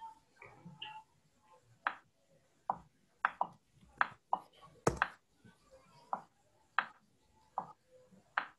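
A series of about a dozen sharp taps or knocks at irregular intervals, with faint background sounds between them.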